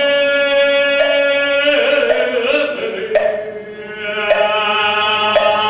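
Korean Buddhist chanting, the drawn-out closing syllables of a dedication verse: long held notes that step down in pitch twice, with a short breath about two-thirds of the way through. Sharp knocks about once a second keep time under the chant.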